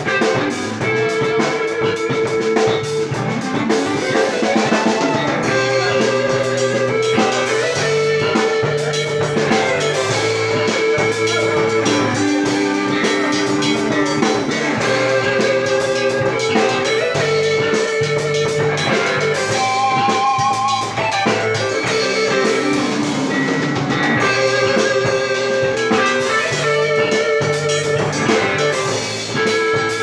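A small live band plays an instrumental tune: a drum kit keeping time with the sticks on the cymbals under an electric guitar playing held melody notes.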